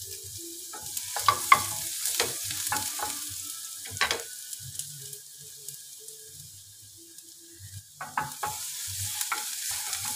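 Minced garlic sizzling in hot olive oil in a small nonstick pan, with scattered sharp knocks and scrapes of a utensil against the plate and pan. The sizzle dies down in the middle and picks up again near the end as the garlic is stirred with a wooden spatula.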